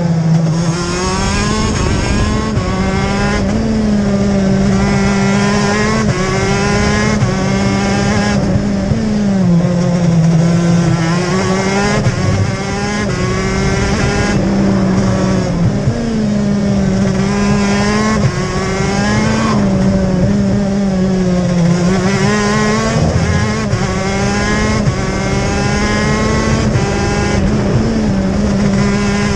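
TM K9C 125cc two-stroke shifter kart engine running hard, heard on board, its revs climbing steeply and dropping back again and again through gear changes and braking around the lap.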